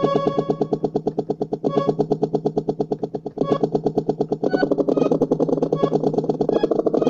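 Kawai MS710 personal keyboard playing a glitching electronic tone that stutters in rapid, even pulses about ten times a second, stepping to a new pitch every second or two.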